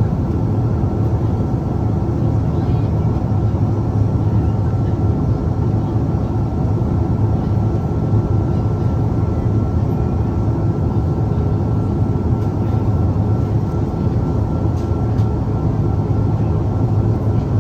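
Jet airliner engines running, heard inside the passenger cabin: a steady, deep, even noise with a faint high tone held throughout.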